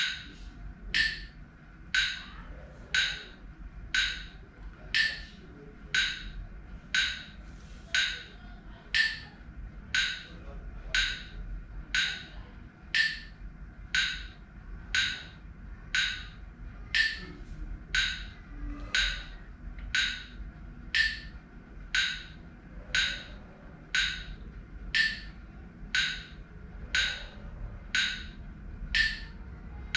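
Phone metronome app ticking at about one click a second, pacing the breaths of a Wim Hof breathing round.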